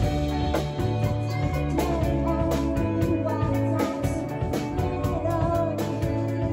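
A live band playing rock music, with guitar and drums.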